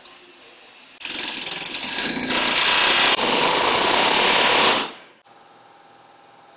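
Pneumatic rivet gun hammering rivets into the aluminium hull skin of a Grumman Goose, backed by a bucking bar. It gives a loud, rapid rattle that starts about a second in, runs for about four seconds and stops abruptly, leaving a faint steady hum.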